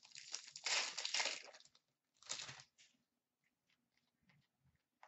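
Hockey card pack wrapper being torn open and crinkled for about a second and a half, with a second short crinkle a little after two seconds. Then come faint light clicks as the cards are handled.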